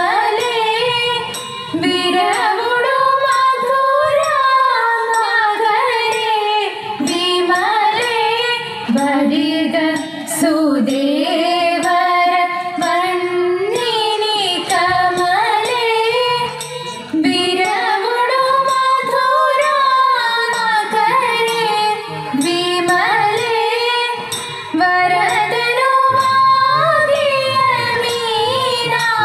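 Female voices singing a Malayalam Thiruvathira song in a Carnatic-style melody, with gliding, ornamented lines.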